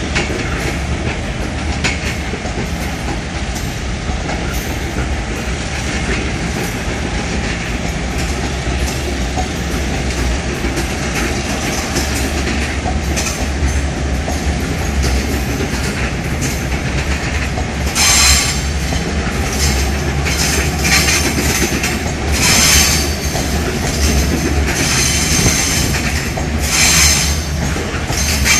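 Train of EMU800 electric multiple-unit cars hauled slowly past by a locomotive, wheels rumbling and clattering over the rails. From about two-thirds of the way in, the wheels squeal on and off as the cars take the curve.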